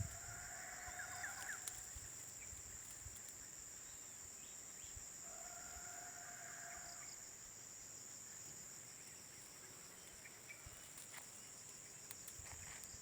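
Steady high-pitched insect drone, with two drawn-out animal calls of about a second and a half each, one at the start and one about five seconds in.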